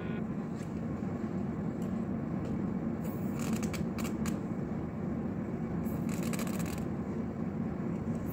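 Small handling sounds of a makeup primer bottle, a few light clicks and then a brief rustling rub, over a steady low background hum.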